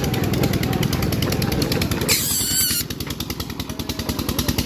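Honda motorcycle's single-cylinder engine running with an even pulsing beat, then dropping to a quieter idle about three seconds in as the bike comes to a stop. Just before the drop there is a brief, wavering, high-pitched squeal.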